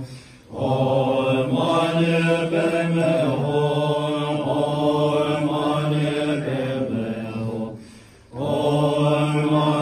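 Voices chanting a Buddhist mantra in long, drawn-out phrases on a fairly steady pitch, breaking off briefly just after the start and again about eight seconds in.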